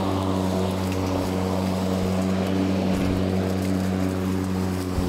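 Ego 56V battery-powered self-propelled lawnmower running while cutting through tall, wet grass: a steady electric motor and blade hum that holds its pitch without bogging down under the load.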